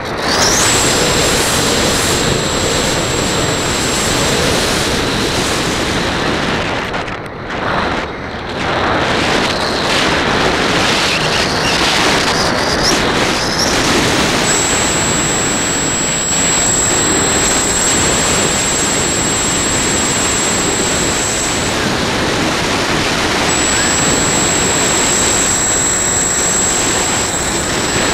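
Radio-controlled model airplane in flight, heard from its onboard camera: loud, steady rushing of air and motor noise, with a thin high whine that comes and goes. The noise drops briefly about seven seconds in.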